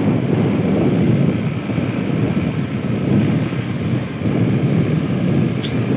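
Small motorcycle running steadily while being ridden along a rough road, its engine and road noise forming an even, slightly wavering rumble.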